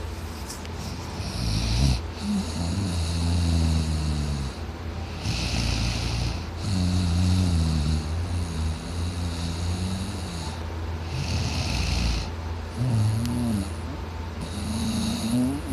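A man snoring heavily: a run of long, low, wavering snores about three or four seconds apart, with breathy hissing between them.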